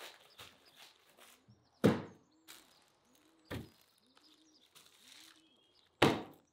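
Foil-wrapped ox hooves knocking down into a metal roasting tray: three knocks, the loudest about two seconds in and another near the end, after a little foil crinkling. Behind them a dove coos softly, about twice a second, with faint bird chirps.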